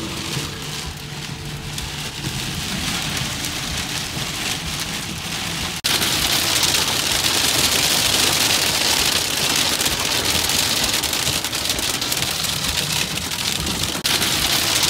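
Rain pattering on a car's side windows, then, from a sudden cut about six seconds in, louder, denser hail driven sideways against the driver's side windows.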